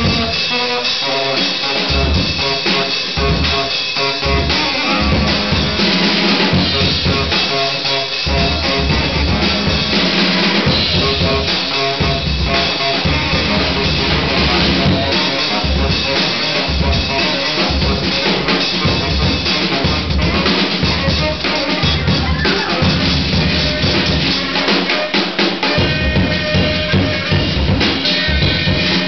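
Live free-jazz duo: a drum kit played busily throughout, with kick drum and snare, under a reed instrument playing pitched lines that climb higher near the end.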